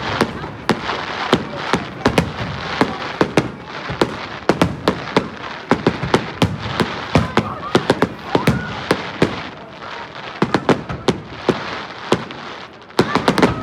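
Fireworks going off in quick, irregular succession: a dense run of sharp bangs and cracks, often several a second, over a continuous crackling haze, easing briefly a little before the end.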